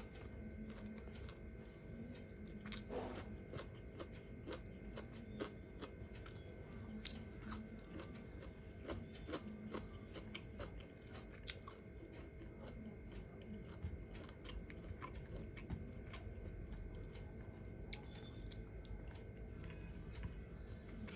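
Close-up eating sounds: a person chewing, with short crunchy bites scattered irregularly throughout and a few louder clicks among them.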